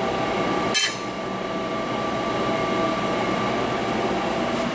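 Steady hum with several held tones from a running Hoston CNC hydraulic press brake, with a single sharp metallic clink a little under a second in.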